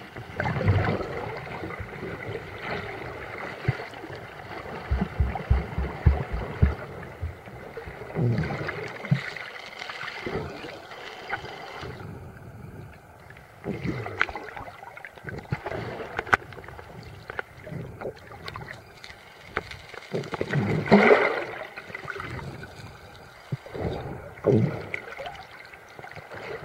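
Underwater camera audio: water sloshing and gurgling around the submerged camera in uneven swishes and faint clicks, with a run of quick clicks around five to seven seconds in and the loudest swish about twenty-one seconds in.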